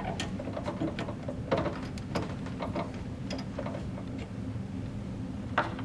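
Drill press chuck being loosened with a chuck key to take out the drill bit: scattered light metal clicks and ticks, the sharpest just before the end, over a steady low hum.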